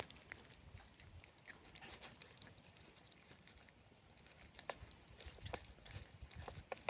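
Puppies faintly chewing and mouthing: soft scattered clicks and smacks, more of them in the second half.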